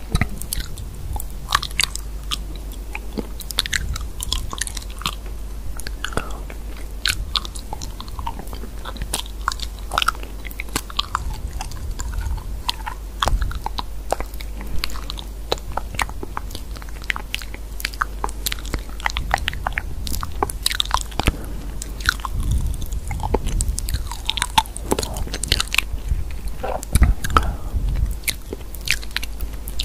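Dense, irregular crisp clicks and crunching taps.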